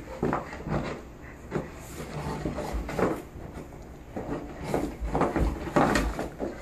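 Golden retriever tearing and chewing a thin cardboard frozen-pizza box: irregular rips, crinkles and crunches of cardboard in its mouth, coming in quick bursts and loudest near the end.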